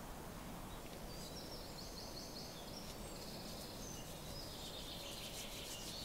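Faint woodland ambience: the steady drone of a distant airplane, with a songbird singing repeated trilled phrases from about a second in.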